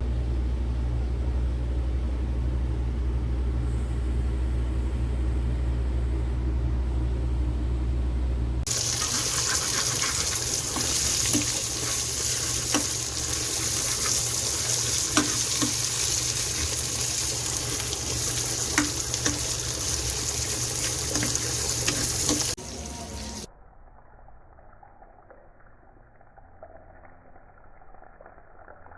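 Kitchen cooking sounds. A steady low hum runs for the first third, then a loud, even hiss with scattered sharp crackles carries on for about fourteen seconds and cuts off suddenly, leaving a much quieter background.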